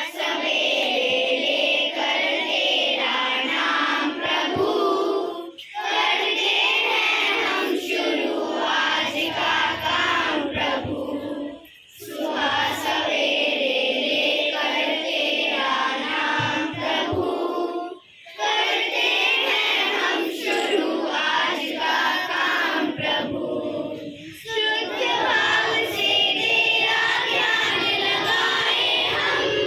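A group of children singing a song together, in phrases of about six seconds with brief pauses for breath between them.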